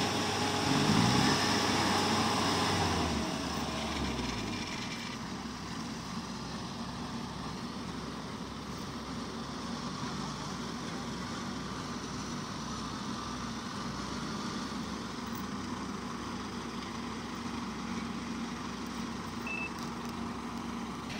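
Farm machine engines of a tractor and a bogged-down combine harvester running. In the first few seconds an engine's revs fall away as the pull stops after the tow chain snaps, then the engines settle into a steady, quieter running.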